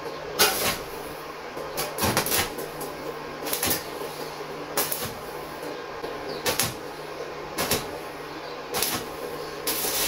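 Work on the thin sheet steel of a scrap-built stove: a run of short, rough strokes about once a second over a steady low hum.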